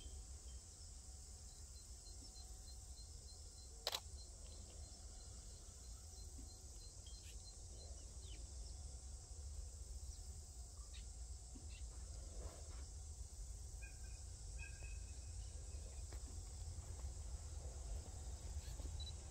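Quiet summer trackside ambience: a steady high insect drone with a run of faint, evenly spaced insect chirps, about three a second, in the first seven seconds, over a low rumble. A single sharp click comes about four seconds in, and a short bird chirp follows a little after the middle.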